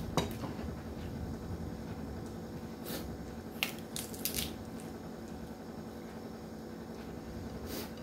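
A few short crackling snaps as a crisp raw cabbage leaf is torn apart by hand, mostly between three and four and a half seconds in, over a steady low hum.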